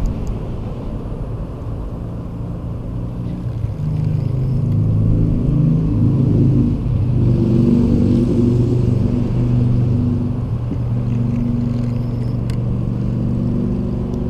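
A motor vehicle engine running close by, getting louder about four seconds in and holding a low hum whose pitch shifts up and down in steps, over a low rumble of wind on the microphone.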